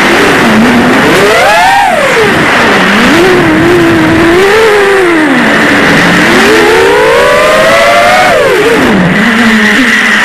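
Six-inch FPV quadcopter's brushless motors (T-Motor Velox 2207 2550KV) and Gemfan 6045 propellers whining, heard from the camera on the drone, the pitch swooping up and down with the throttle. Partway through, a long climb in pitch drops off sharply near the end, over a steady hiss of wind.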